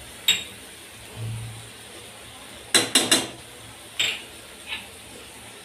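Steel utensils clinking against a steel kadhai as powdered spices are tipped into the pan: one clink, then three quick clinks a little under halfway through, then another and a fainter one.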